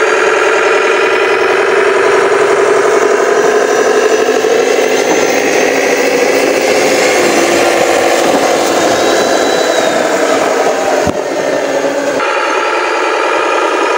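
Radio-controlled model dump truck running, a steady engine-like drone made of many even tones. It is broken by a sharp click and a brief dip about 11 seconds in, and the sound changes character shortly after.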